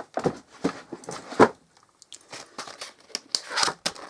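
Crinkling and rustling with irregular sharp crackles, as the framelet dies and other craft supplies are handled.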